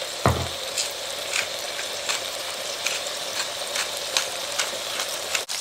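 Thin chicken breast cutlets frying in hot vegetable oil in a pan: a steady sizzle with scattered crackling pops. A single low thud comes just after the start.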